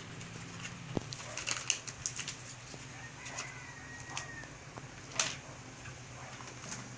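Clear plastic wrapping crinkling and rustling as a new tablet is handled, with scattered sharp crackles and one louder snap about five seconds in.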